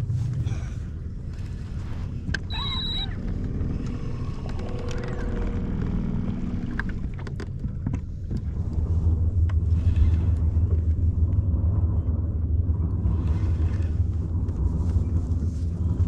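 Low steady rumble of boat outboard motors on the river, growing louder about eight seconds in and holding. A brief high beep comes early on.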